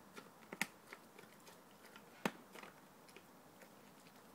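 A dog biting and chewing at a large raw steak in a metal bowl: quiet chewing with a few sharp clicks, the loudest about half a second in and just after two seconds.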